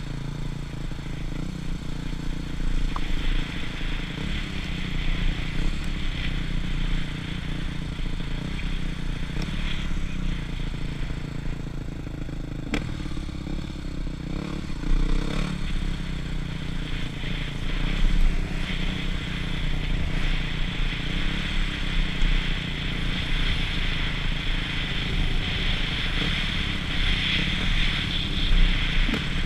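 Husqvarna TC250's 250 cc four-stroke single-cylinder motocross engine running under load while riding, its pitch rising and falling with the throttle. A steady hiss rides over it, with a few sharp clicks around the middle.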